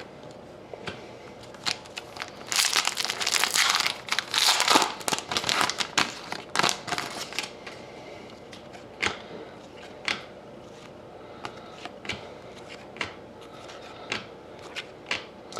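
A trading card pack wrapper crinkling and tearing open, loudest from about two and a half to five seconds in, followed by scattered light ticks and taps of cards being handled and flipped.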